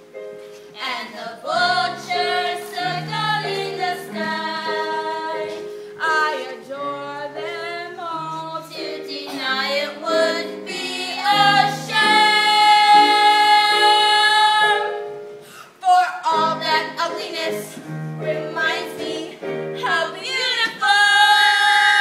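A teenage girl sings a solo stage song over instrumental accompaniment, holding one long note about halfway through.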